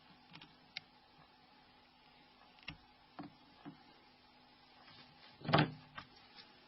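Small clicks and scrapes of metal tweezers working on the Nokia N93's plastic flip frame as its adhesive tape is peeled off. A louder, short scrape comes about five and a half seconds in.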